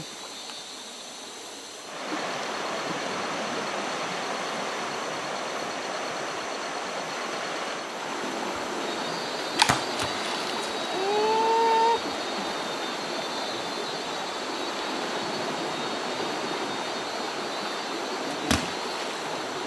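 Quiet jungle ambience gives way about two seconds in to the steady rush of a shallow river, with insects buzzing high above it. Twice something thrown into the water lands with a sharp splash, about halfway through and again near the end, and a short rising call follows the first splash.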